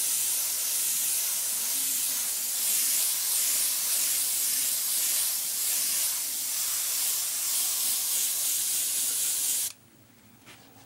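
Airbrush spraying paint: a steady hiss of air and paint mist that wavers a little as the spray is worked, then cuts off suddenly near the end when the trigger is released.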